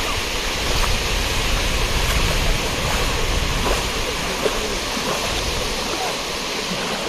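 Steady rushing noise of sea surf on the beach, with a low wind rumble on the microphone.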